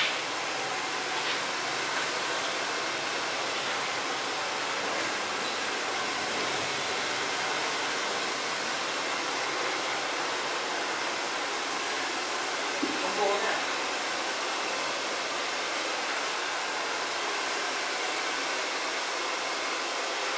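Steady, even hiss with a short click at the very start and a brief faint sound about thirteen seconds in.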